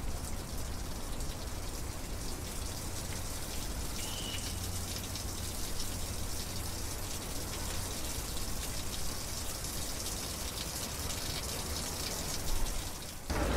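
Steady splashing and rushing of a water fountain, with one short high chirp about four seconds in.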